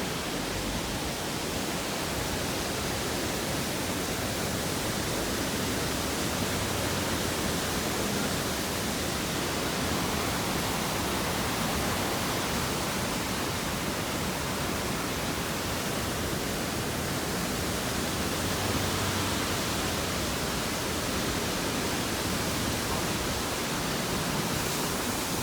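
Steady, even rushing of a mountain stream.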